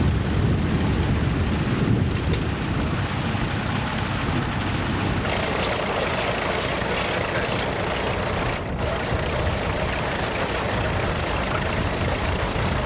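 Vintage tractor engine running, a steady mechanical noise heavy in the low end. The sound shifts abruptly about five seconds in and briefly drops out near nine seconds in.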